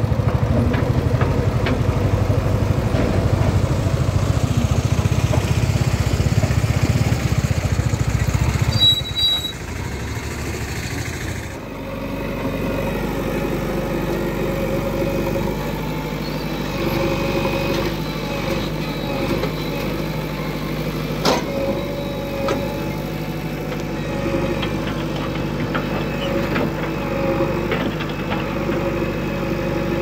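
Diesel engine of a JCB 3DX Xtra backhoe loader. For the first nine seconds it is a loud low rumble as the machine drives along a road. After a sudden change about eleven seconds in, the engine hums more quietly and steadily while the machine works in a field, with one sharp knock partway through.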